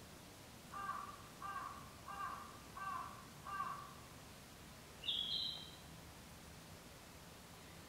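A bird calling five times in a quick, even series, then one brief higher call about five seconds in.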